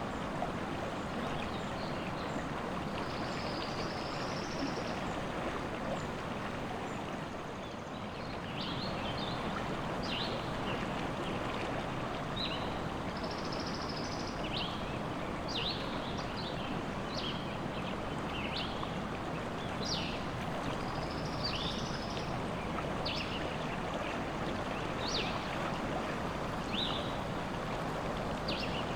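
Forest river or stream rushing steadily, with small birds singing short chirps and trills over it, more of them in the second half.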